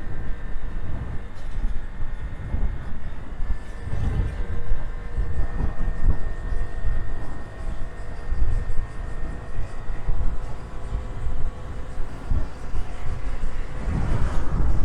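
Wind buffeting a clip-on microphone on a moving motorcycle: a heavy low rumble that swells and falls unevenly. A faint steady high whine sits underneath and fades about two-thirds of the way through.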